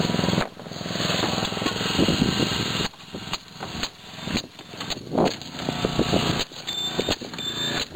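Small petrol engine of a hydraulic rescue-tool power unit running steadily. Its level drops abruptly about half a second in and again about three seconds in.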